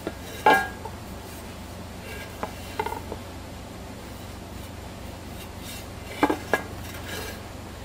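Ceramic platter clinking and knocking as it is handled and turned on a table while its rim is brushed with paint. There is one sharp clink with a short ring about half a second in, a few lighter knocks near three seconds, and two more just after six seconds.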